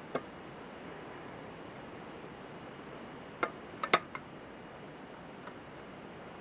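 A few light clicks and taps over a steady background hiss: one shortly after the start, a quick cluster of three or four about three and a half to four seconds in, and a faint one about five and a half seconds in.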